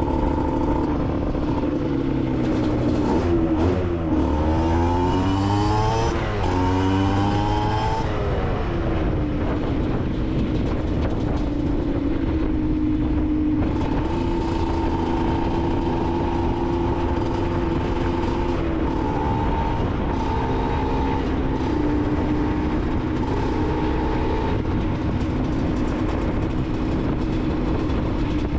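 Aprilia SX 125's single-cylinder two-stroke engine with an Arrow exhaust, under way. From about three to eight seconds in it revs up in a series of quick rising sweeps, shifting up through the gears. After that it holds a steady high-pitched drone with small shifts in pitch.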